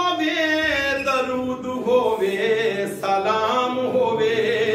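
A man singing a Punjabi devotional song unaccompanied into a microphone, drawing out long, wavering notes.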